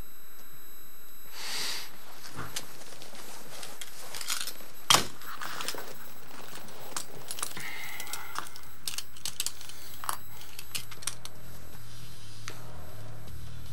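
Light clicks, taps and rattles of a small metal tin and things on a desk being handled, with one sharp click about five seconds in.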